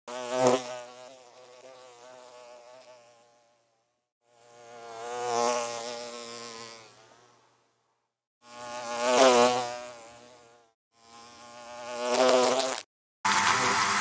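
A bee buzzing in flight, in four separate passes that each swell and fade, the wingbeat pitch wavering. Near the end a steady, denser buzzing hum cuts in.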